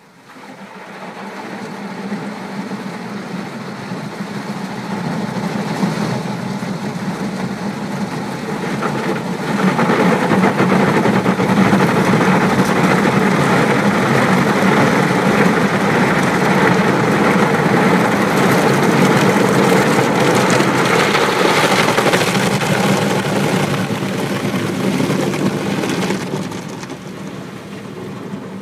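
Automatic car wash machine running and spraying water over the car, heard from inside the car: a steady mechanical hum under a wash of spraying water. It builds over the first ten seconds or so, stays loud and steady, then eases off a couple of seconds before the end.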